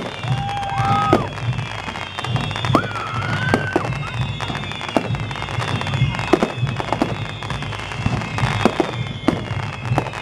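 Fireworks display: aerial shells bursting in a rapid, irregular string of bangs and crackles, several a second. Music is playing alongside, with a few held notes in the first half.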